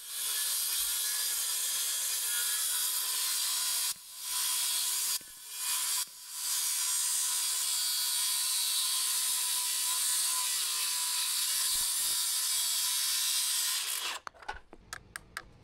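Circular saw running and cutting through the top of a wooden stud standing in place. It stops briefly three times, about 4, 5 and 6 seconds in, then runs steadily until it cuts off near the end, followed by a few light clicks.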